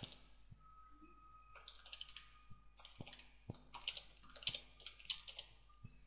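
Faint computer keyboard typing: short runs of quick keystrokes with brief pauses between them.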